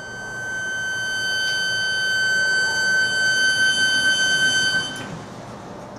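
High-pitched steady whine from the electric truck's inverter (motor controller) under light throttle in neutral. It grows louder, then cuts off suddenly about five seconds in.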